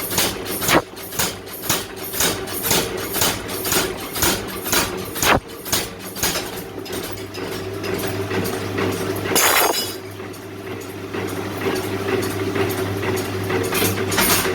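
Mechanical power hammer striking hot iron in a quick steady rhythm, about three to four blows a second, over the hum of its running drive. The blows stop about six seconds in while the machine keeps running, with a short loud hiss-like burst near ten seconds.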